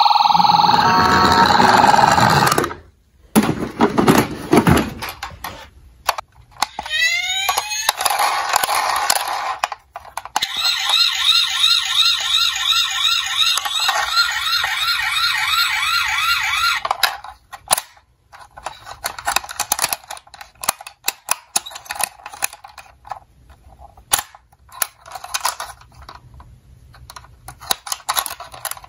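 Battery-powered toy ambulance sound effects set off by a button: an electronic sound in the first couple of seconds, a few rising siren wails, then an electronic yelp siren repeating about three times a second for several seconds. The last ten seconds hold light clicks and rattles of plastic toys being handled.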